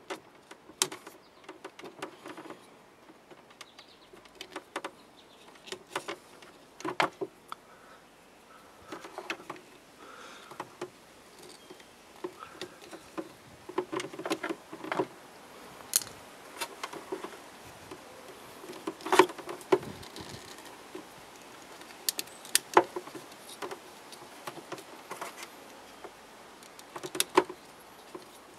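Irregular small clicks and scrapes of a small screwdriver and fingers against the plastic pump housing and rubber O-rings, as the old O-rings are pried off the pump outlet and new ones are fitted.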